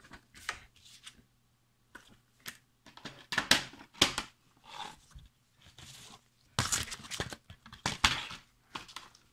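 Plastic DVD cases and a paper leaflet being handled: irregular rustling and scraping with sharp plastic clacks, the loudest about three and a half seconds in and again around seven to eight seconds in.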